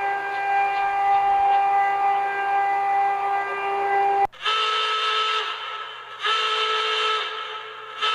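Emergency alert alarm tone: a loud, steady chord of several tones that cuts off sharply about four seconds in. It is followed by a different alarm pattern of the same kind of horn-like chord, sounding in repeated pulses of about a second and a half with short gaps.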